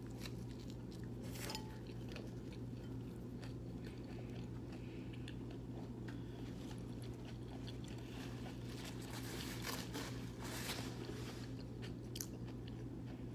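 A person biting into and chewing a large mouthful of vegan pizza, with scattered wet mouth clicks and crackles, over a steady low hum.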